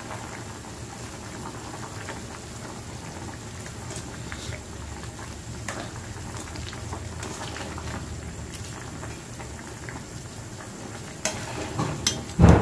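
Chicken tinola broth bubbling steadily at a boil in a metal pot while a ladle stirs through it. Near the end there are a few sharp knocks of the ladle against the pot, the loudest just before the end.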